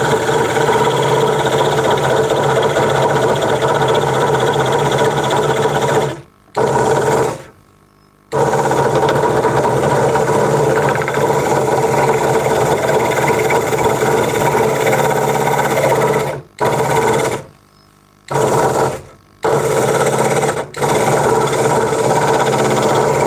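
Craftsman 22-inch scroll saw running, its reciprocating blade cutting the waste out of small eye openings in a wooden cutout. It is a steady, even mechanical hum, and it cuts out abruptly to near quiet for a moment several times, around 6, 8, 16 to 21 seconds in.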